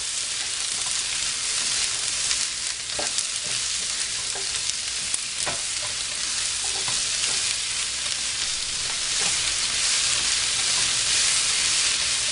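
Fried cauliflower florets and chopped onions sizzling with a steady hiss in a hot wok, stirred with a spatula that scrapes and taps against the pan now and then.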